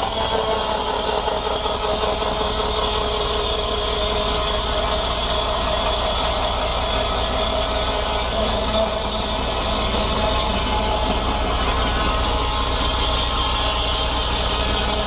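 Fordson Power Major tractor running steadily, driving the rack sawmill's large circular saw through its PTO, with a steady, even tone and a slight dip in pitch at the start.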